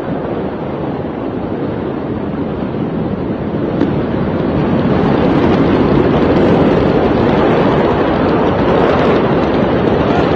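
A steady rushing noise with no words, growing louder about four to five seconds in, with a single faint click near four seconds.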